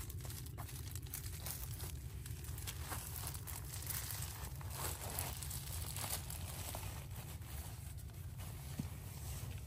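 Close rustling and crinkling of gear being handled, with many small scattered clicks, over a steady low rumble.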